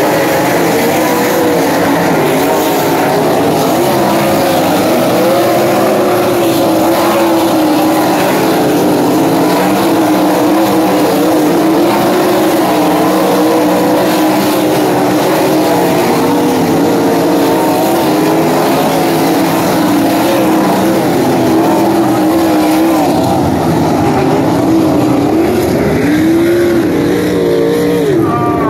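Several winged sprint car engines running hard at once, the pitch of the pack rising and falling as the cars go around the track. Near the end one engine climbs and drops sharply in pitch.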